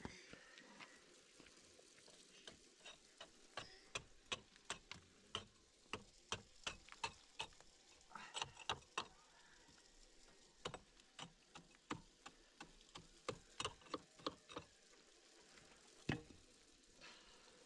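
A long, irregular series of light, sharp taps or clicks, about two or three a second with short pauses, over a faint steady hiss; one louder tap about sixteen seconds in.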